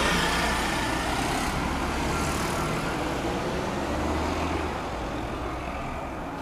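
A car driving past on the road close by, its tyre and engine noise loudest at first and slowly fading away.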